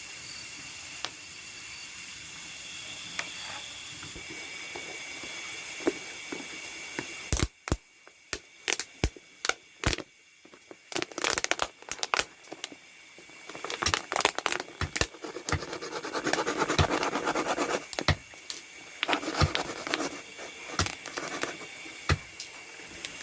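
Steady chorus of night insects in a rice field, high pitched, which cuts off suddenly about seven seconds in. Then come sharp clicks and knocks of something being handled, with a few seconds of scraping, crinkling noise.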